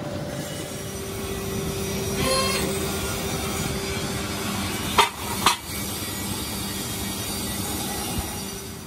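Steady hum of workshop machinery with two sharp metal clanks, half a second apart, about five seconds in, from steel wheel parts being knocked or set down.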